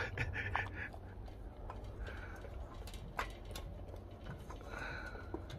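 Tibetan Mastiff puppy eating from a stainless steel bowl on a stand: scattered clicks and knocks of its mouth and food against the metal.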